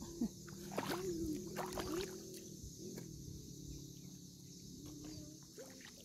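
Shallow seawater sloshing and lapping as someone wades through it, with a few sharp knocks in the first two seconds.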